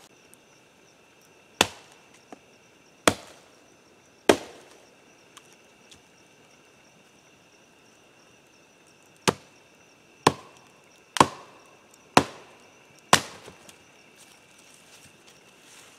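Firewood being split by hand with short, sharp chopping strikes, eight in all: three about a second and a half apart, then after a pause five more about a second apart.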